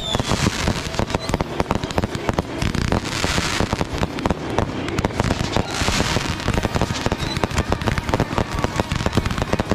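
Aerial fireworks finale barrage: many bangs in rapid succession, overlapping and almost continuous, with crackling. Two hissier bursts of crackle come about three and six seconds in.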